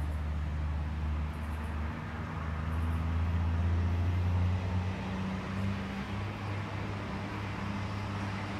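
A vehicle engine runs with a steady low hum. Its pitch steps up about five seconds in.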